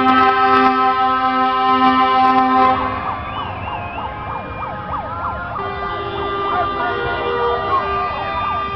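A loud horn holds a steady chord for the first few seconds. Then come many shrill, wavering whistles and shouts from students celebrating on a passing truck, with horn tones still sounding underneath.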